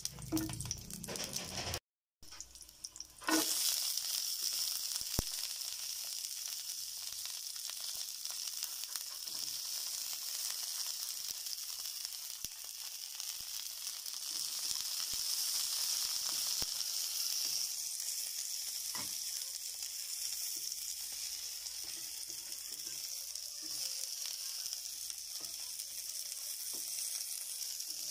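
Vegetables (string beans and squash shoots) sizzling in hot oil in a nonstick frying pan. After a brief break, a steady sizzle starts about three seconds in, with a few light clicks from stirring.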